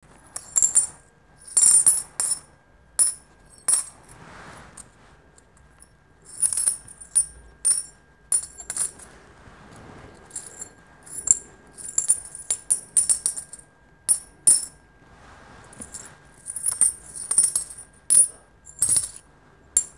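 Gold-coloured coins clinking as they are poured from one palm into the other: irregular runs of bright, ringing clinks with short pauses between pours.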